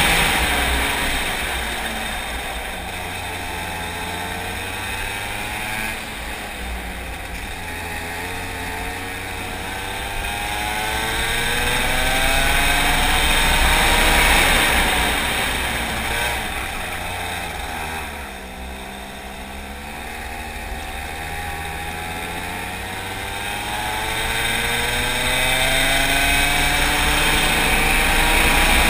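Racing kart engine at full race pace, its revs climbing in pitch along the straights and falling away as it slows for the corners, twice over.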